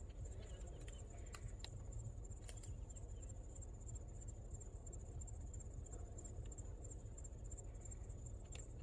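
Insects chirring: a steady, high-pitched trill with a fine rapid pulsing, over a low rumble and a few faint clicks.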